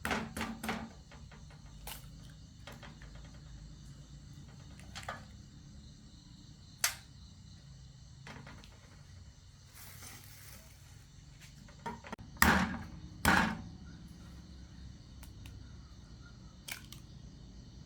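Scattered short knocks and clicks, with two louder thumps close together about twelve and a half seconds in and a brief rustling hiss a little before them.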